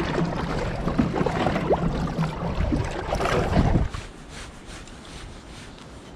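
Water splashing and wind noise on the microphone as a smallmouth bass is released over the side of a boat. About four seconds in, the sound drops suddenly to quieter wind and water noise.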